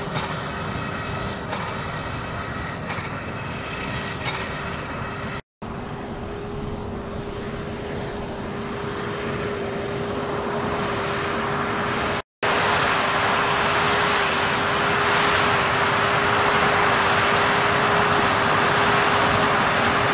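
Fendt 724 tractor and Krone BigPack 1270 VC large square baler working together while baling straw: a steady machine drone with a held hum running through it. The sound cuts out briefly twice and is louder after the second gap, when the rig is passing close.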